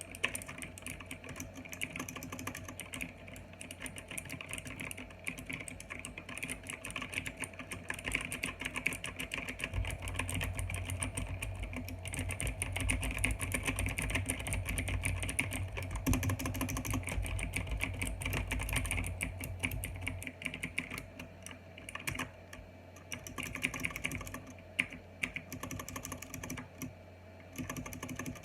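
Fast, continuous typing on a mechanical keyboard with clicky OUTEMU Blue switches, with a few short pauses near the end. A low hum sits under the clicking for about ten seconds in the middle.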